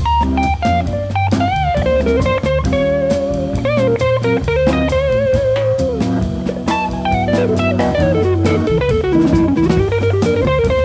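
Organ-jazz quartet playing: an electric guitar on a semi-hollow-body guitar takes a solo line with bent, wavering notes over sustained Hammond organ chords and bass, with a drum kit keeping time.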